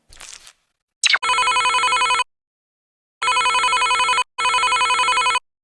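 Electronic trilling ring tone, like a telephone ringing, sounded in three bursts of about a second each with dead silence between them. A short rising chirp comes just before the first burst.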